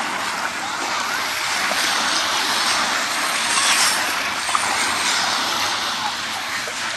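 Sea waves washing onto a sandy beach: a steady rushing surf that swells and eases.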